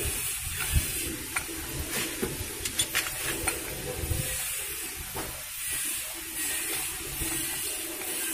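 Steady hiss under a scatter of light metallic clicks and taps, mostly between about one and three and a half seconds in, as a motorcycle front fork tube is handled.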